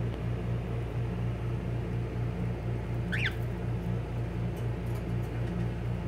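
A single short cockatiel chirp about three seconds in, over a steady low hum that pulses at an even rate throughout.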